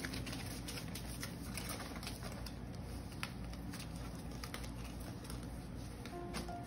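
Two puppies play-wrestling on newspaper: irregular light clicks and rustles of paws scrabbling on the paper over a low steady hum.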